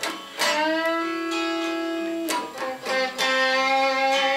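Fender SRV Stratocaster electric guitar playing a slow blues lead fill. About half a second in, a picked note is bent upward and held for nearly two seconds, then new notes are picked and left ringing.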